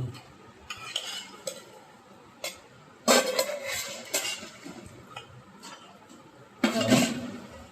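A utensil stirring and scraping in a metal cooking pot, with scattered clinks and two louder bouts of scraping and clattering, about three seconds in and again near the end.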